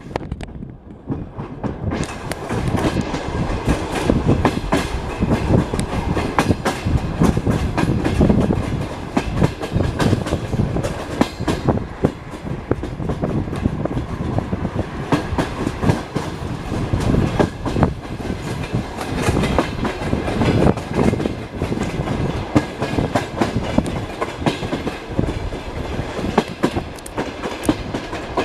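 Passenger coach wheels clattering over rail joints, with a steady rolling rumble and frequent sharp clicks. The upper register is quieter for the first couple of seconds.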